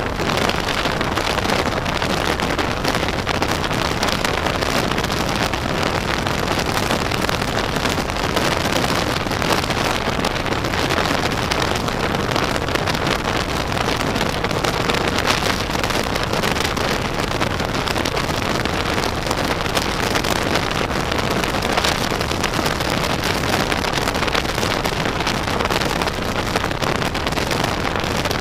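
Wind buffeting the microphone over the steady running drone of a SYM maxi-scooter's engine and tyre noise at road speed.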